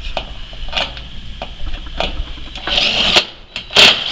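Work on a sheet-metal (tin) roof: several sharp knocks and clanks on the tin, with a short, busier mechanical burst about three seconds in and the loudest knock near the end.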